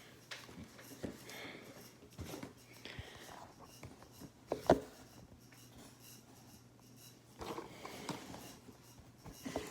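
Faint handling noises, scattered small clicks and rubs, with one sharp knock a little under halfway through, as the recording phone is moved and set in place.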